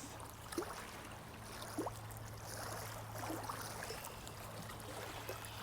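Faint stream water trickling steadily, with a few short gurgles, over a low steady hum.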